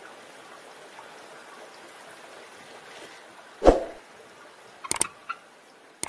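Steady hiss-like background, then a loud whoosh about three and a half seconds in and a few quick clicks about five seconds in: the sound effects of a subscribe-button animation, the swoosh of the button popping up and mouse clicks on it.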